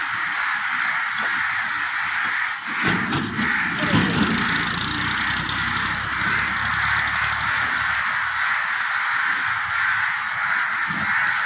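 A steady, dense din of many birds calling at once, crow-like cawing merged into one continuous chorus. A brief low rumble rises over it about three to four seconds in.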